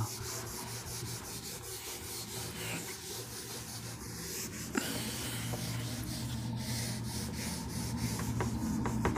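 Quick scratching strokes of writing on a surface, many short strokes in a row over a steady low hum, with one sharp click about halfway through.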